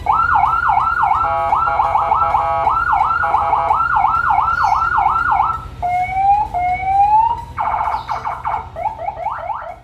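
CJB200W electronic siren cycling through its tones: a fast rising yelp repeating about twice a second, then two slow rising wails about six seconds in, then a rapid pulsing tone and quick upward chirps near the end.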